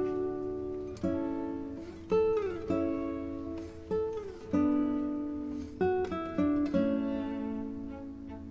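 Background music: a slow melody on a plucked guitar, notes struck about once a second and fading, some sliding up or down in pitch.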